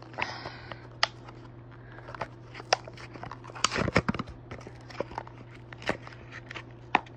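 Packaging being opened by hand: scattered sharp clicks, snaps and brief crinkling, busiest about four seconds in.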